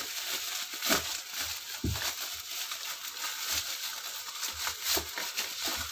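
Plastic bubble wrap crinkling and crackling as it is folded around a small box by hand, with louder rustles about one and two seconds in.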